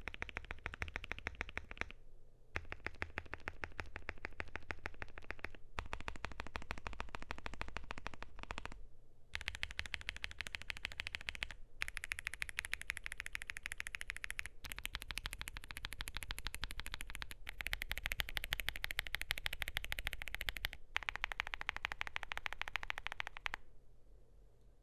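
Fast, continuous typing on a KBDfans Phase One 65 mechanical keyboard with lubed and filmed CIDOO Matte switches on a polycarbonate plate. It comes in stretches of about three seconds split by brief pauses, some stretches brighter than others, and fades out near the end.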